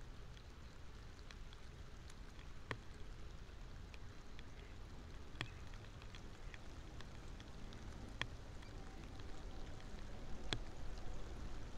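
Rain falling on open marsh water: a steady hiss, with a sharp single drop tick about every two to three seconds.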